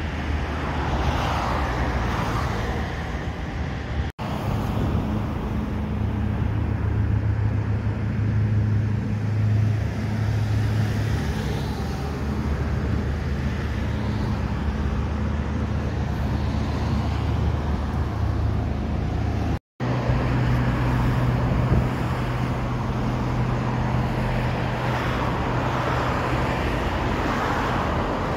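Steady road traffic noise with a low, steady engine drone underneath, broken by two brief dropouts.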